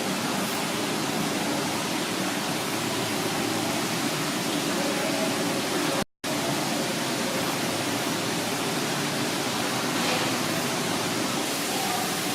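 Steady rushing, bubbling water from hot tubs, with faint voices mixed in. The sound cuts out completely for a moment about halfway through.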